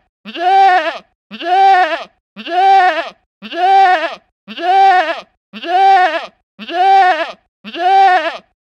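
A goat bleating: the same short call repeats about once a second, eight times over, each bleat rising a little, holding, then dropping at the end. The calls are identical copies, a single bleat looped.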